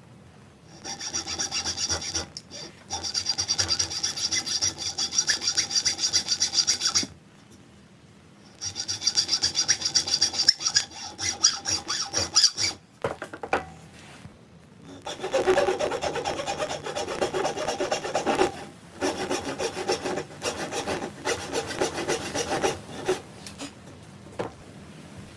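Hacksaw cutting a hardwood block clamped in a bench vise, in quick, even back-and-forth strokes. The sawing comes in three bouts with short pauses between them, and the last bout is lower in pitch.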